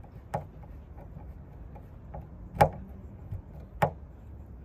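Hand screwdriver clicking and knocking against a screw head in the metal frame of an RV storage-compartment lock as the screw is driven by hand. There are three sharp clicks, the loudest about two and a half seconds in, with fainter ticks between them.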